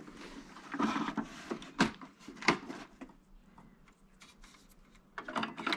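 Plastic handling noises and a few sharp clicks as an ink cartridge is fitted into the cartridge carriage of a Canon Pixma TR4520 inkjet printer. The handling comes in two spells, with the sharpest clicks about two and two and a half seconds in.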